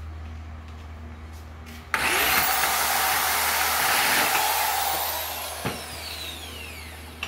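Corded electric drill starting up about two seconds in and drilling into a steel angle bar, testing a freshly sharpened drill bit. After about three seconds it stops and the motor whine falls away as it spins down.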